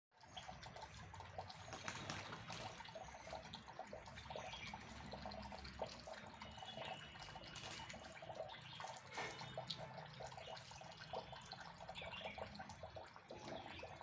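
Small songbirds chirping in the trees: a busy stream of short chips with a few brief whistled notes, over a faint low background rumble.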